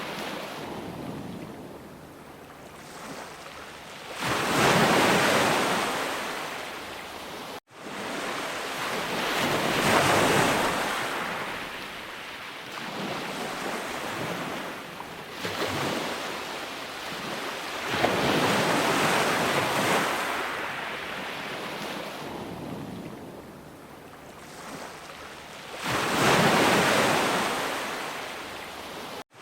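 Sea waves breaking and washing back in slow surges, swelling every several seconds, loudest about four, ten and twenty-six seconds in. The sound cuts out for an instant about seven and a half seconds in.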